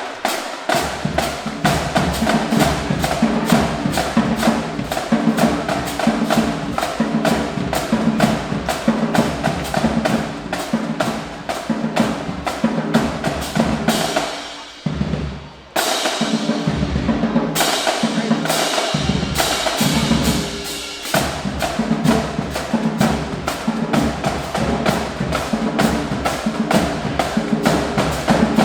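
Marching band drumline playing a fast, driving cadence of dense drum strokes. It cuts out for about a second midway, then comes back in.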